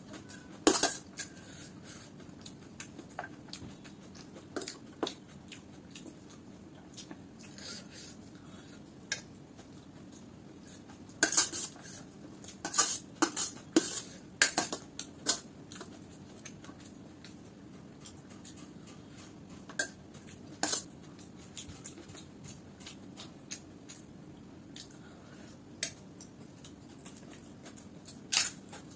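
Steel spoon clinking and scraping against a stainless steel plate of poha. There is a busy run of clinks from about 11 to 16 seconds in and single clinks elsewhere, with soft eating sounds in between.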